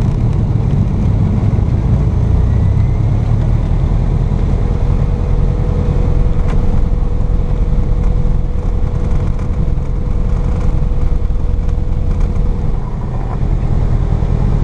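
A Cessna Cardinal's four-cylinder Lycoming engine and propeller running steadily at low taxi power, heard from inside the cabin.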